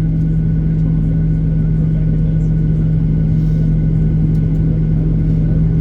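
Boeing 737-800 heard from inside the cabin during engine startup: a steady, loud drone with a strong low hum and a faint high whine over it.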